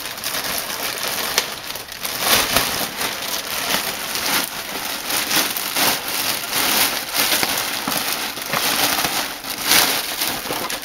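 Clear plastic bag crinkling and rustling continuously as it is cut open and a bulky nylon plate carrier is dragged out of it, with many short crackles.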